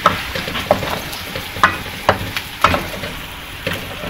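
Chopped onions sizzling in hot oil in a metal wok as they are browned, with a wooden spoon stirring and scraping against the pan in about six sharp, uneven strokes.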